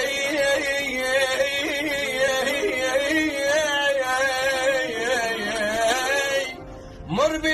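Middle Eastern music: a sustained melodic line with ornamented, sliding notes over a steady accompaniment. It breaks off briefly near the end and comes back with a rising slide.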